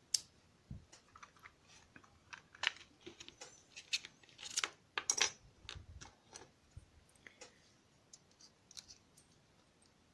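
Small metal clicks, taps and light scrapes from handling a euro-profile lock cylinder and its tools. Irregular. A sharp click comes right at the start, and the clicks are busiest about halfway through.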